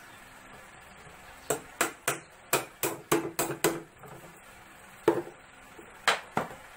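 Claw hammer driving a nail into a plywood cabinet box: a quick run of about nine blows starting a second and a half in, then three more separate knocks.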